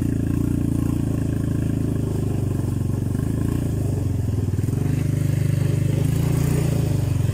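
Linhai 300 ATV's single-cylinder four-stroke engine running at a fairly steady throttle, its note swelling slightly about five seconds in.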